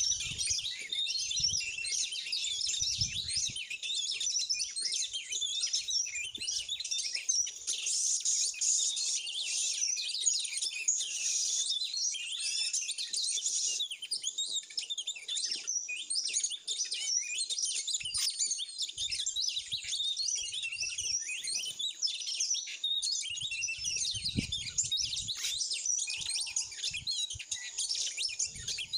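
Songbird chirping and whistling in a dense, unbroken run of high notes. A few dull low thuds come near the start and again about 24 seconds in.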